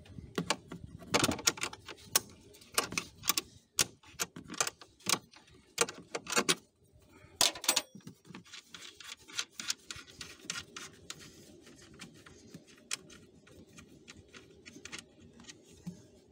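Metal wrench clicking and knocking against the plastic cabin air filter housing of a BMW X5 E53 as its fasteners are worked loose. Sharp, irregular clicks come first, then a quicker run of lighter clicks about halfway through.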